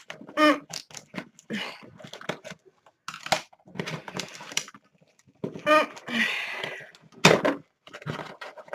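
Packaging being torn and crinkled in short irregular bursts as a subscription box is prised open by hand, with a few brief murmurs from the person opening it.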